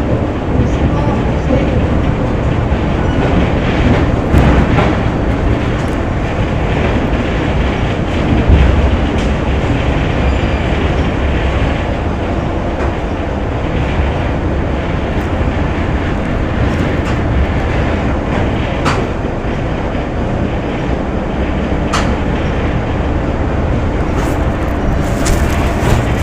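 Factory ambience: a steady, dense rumble of running machinery with scattered sharp clanks and ticks, several of them standing out in the second half.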